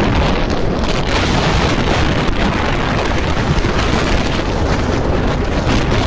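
Loud, gusty wind buffeting the microphone.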